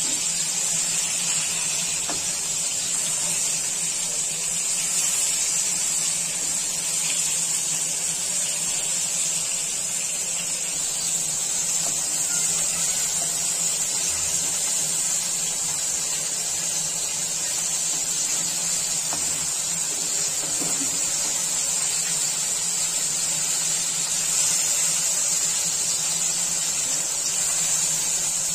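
Bombil (Bombay duck) fish shallow-frying in hot oil in a nonstick pan over a full gas flame: a steady, high-pitched sizzle.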